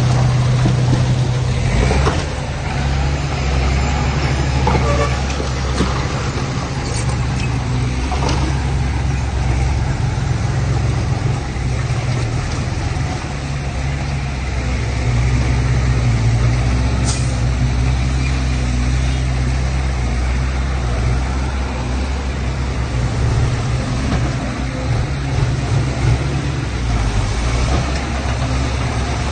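Large diesel engine of heavy landfill machinery running steadily at a low, even note, with a few short knocks or clanks now and then.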